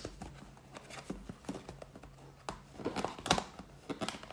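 A cardboard cosmetics box being handled and opened: rustling and crinkling of the packaging, with several sharp light clicks and taps.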